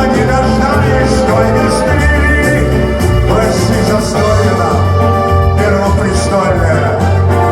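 Live concert band music with a strong, steady bass line.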